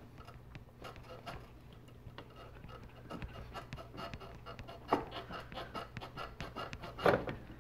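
Rubber air intake hose being twisted and worked off the throttle body of a Nissan Versa, giving faint rubbing, creaking and small clicks, with two louder scuffs about five and seven seconds in.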